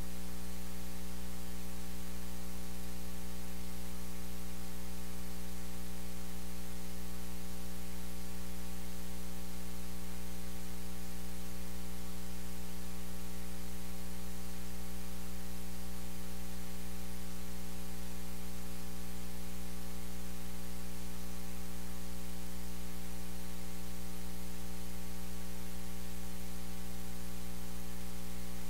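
Steady electrical mains hum with a buzzy stack of overtones and an even hiss over it, unchanging. No sound from the room comes through it: the audio feed carries only interference.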